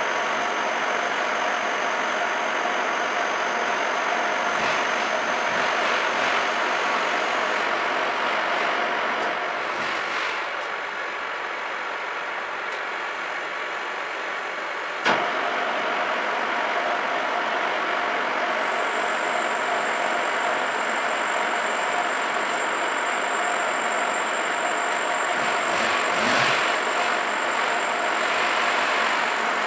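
Milling machine running while it cuts gear teeth in a metal pinion blank held on a dividing head: a steady mechanical whirr with a constant hum. It eases slightly for a few seconds near the middle, and there is a single sharp click about halfway through.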